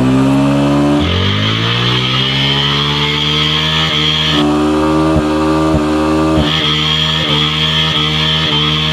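Bajaj NS200 motorcycle's single-cylinder engine revved hard and held at high revs, stuttering briefly several times in the middle. A high steady squeal comes in about a second in, drops out midway and returns near the end.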